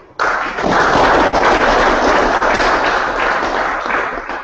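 Audience applauding: dense clapping that starts abruptly and tapers off near the end.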